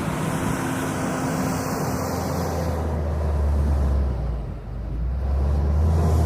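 JCB 426ZX wheel loader's diesel engine working under load, with a brief drop in engine sound about four and a half seconds in before it picks up again.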